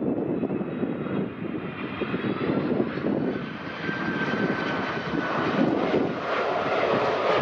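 Widebody jet airliner's engines running as it passes: a steady heavy rush with a faint whine that slowly falls in pitch.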